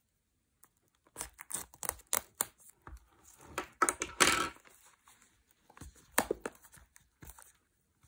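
Hands handling a Blu-ray collector's box set in its cardboard slipcase: a run of short scrapes, taps and rustles. The longest and loudest scrape comes about four seconds in.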